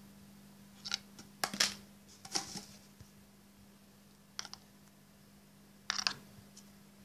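Handling noise from unpacking a phone box: light clicks and rustles of the plastic earphones and wall charger against the cardboard tray, in about five short bursts over a faint steady hum.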